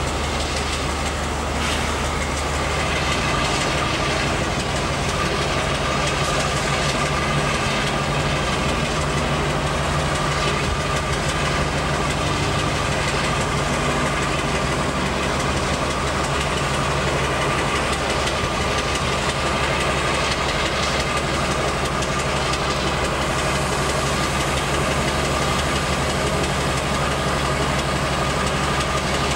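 Class 52 'Western' diesel-hydraulic locomotive idling steadily on its Maybach engines while it stands still, a steady low engine hum with a high whine over it.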